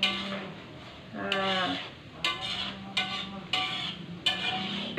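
Metal spatula stirring shallots frying in a wok, with short scraping knocks against the pan about every half second to second. A short, high, voice-like call sounds about a second in.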